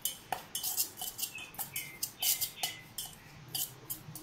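Metal spoon scraping and clinking against a stainless steel bowl while stirring spice powders: a quick run of short scrapes, several a second.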